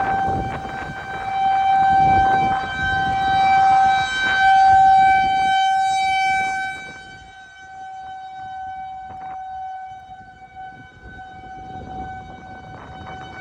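Outdoor tornado warning siren sounding one long steady tone, swelling louder and then fading about halfway through. A rushing noise lies under it at the start.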